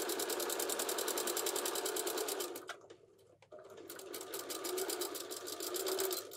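Electric domestic sewing machine stitching a seam through pillow-cover fabric, a rapid, even run of needle strokes. It stops for about a second partway through, then starts stitching again.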